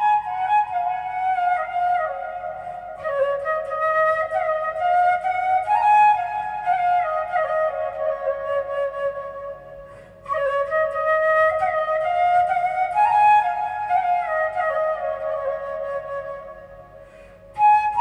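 Background music: a flute playing a slow melody in falling phrases, breaking off briefly about halfway and again near the end.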